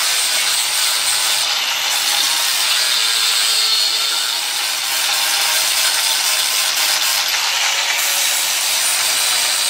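Angle grinder running steadily against steel car bodywork, grinding a freshly welded-in patch clean where rusted metal was cut out.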